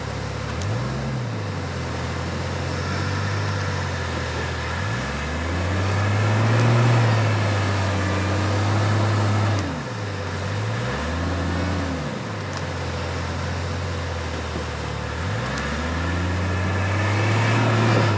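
Four-wheel-drive vehicle's engine revving up and easing off again and again, with the longest hold in the middle, as it tries to push through deep, soft snow.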